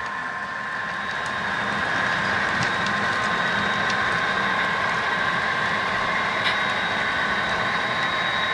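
HO scale model diesel locomotives' engine sound running steadily as a model freight train rolls past on the track, with a few faint clicks.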